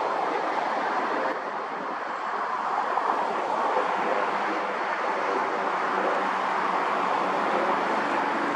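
Jet airliner's engines during landing: a steady rushing jet noise with a faint low hum, dipping briefly about a second in and swelling slowly afterwards.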